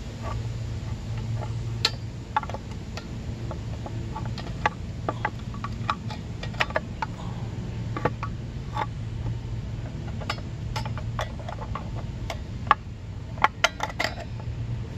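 Sharp metallic clicks and clinks of pliers, brake shoes and return springs being worked on the rear drum brake panel of a 1981 Yamaha XV750 during a shoe change, with a louder run of clicks near the end. A steady low hum sits underneath.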